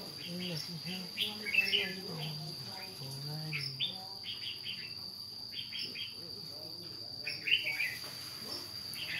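Insects trilling steadily at one high pitch, with short bird chirps every second or so. A low voice murmurs faintly in the first few seconds.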